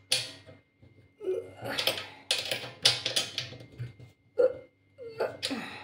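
Irregular metallic clicks and scrapes of a small stamped steel open-end wrench turning a nut on a steel pot-rack bolt as it is tightened, with a few short voice-like sounds in between.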